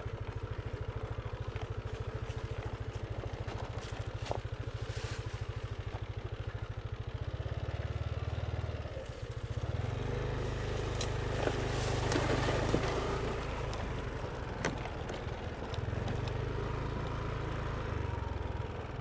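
A motorbike engine idles with an even low pulse. From about ten seconds in, a Mazda pickup truck drives slowly past on the dirt track; its engine and tyres on loose soil make the loudest stretch, peaking around twelve seconds before fading.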